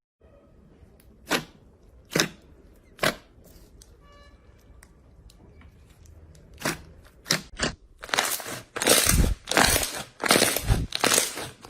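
Slime being pressed and squeezed by hand: a few sharp clicks and pops, then from about eight seconds a run of loud crunchy crackles, roughly two a second.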